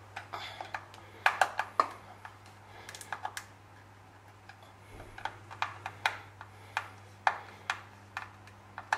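Screwdriver tightening the cover screws of a rotary switch box: irregular clusters of sharp clicks and ticks.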